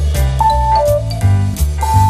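Background music with a jazzy feel: a walking bass line under held melody notes and light percussion on the beat.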